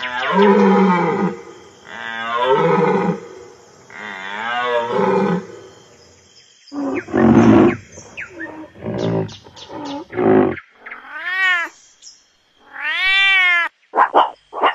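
A run of animal calls from several animals in turn: a bull elk gives three long drawn-out calls, then a rhinoceros and its calf give a series of shorter calls ending in two high squeals that rise and fall, and meerkats give short chirps near the end.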